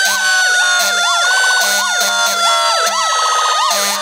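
Sirens on a 1999 E-One pumper fire truck: one siren yelps in rapid up-and-down sweeps over a second siren's long tone that slowly falls in pitch.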